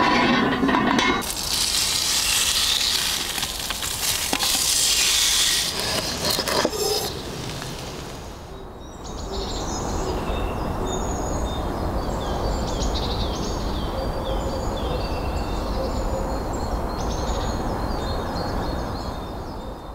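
Food sizzling on a hot cast-iron grill plate, a loud hiss for the first several seconds. Then, after a short lull, birds chirping over a steady outdoor background that fades out near the end.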